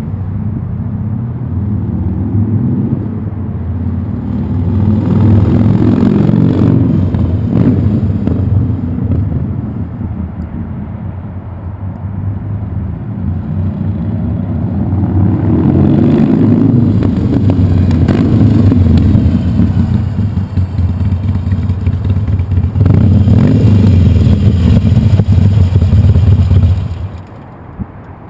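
Harley-Davidson Sportster V-twin running through a Firebrand 3-inch Loose Cannon slip-on exhaust, a deep sound from its 2-inch perforated-core baffles with dual-layer packing. The sound swells louder three times, then drops off sharply near the end.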